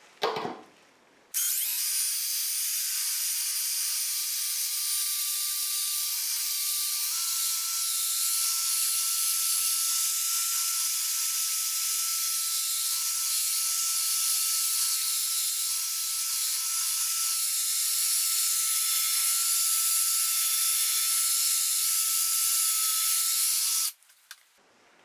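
Cordless drill-driver spinning a 3-inch foam polishing pad against a car headlight lens coated in abrasive polish. It makes a steady whine with a hiss of the pad rubbing, steps up a little in pitch about seven seconds in, and cuts off suddenly just before the end.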